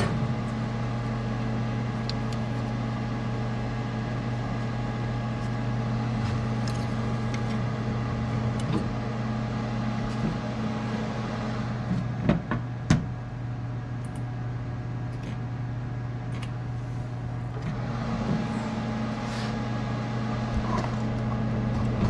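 Steady electric hum of a K40 CO2 laser cutter with its cooling water pump running, with a couple of sharp clicks about halfway through.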